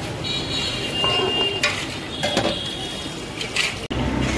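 Hands mixing and squeezing marinated chicken in an aluminium bowl, with a few clinks and scrapes against the metal bowl over steady street background noise.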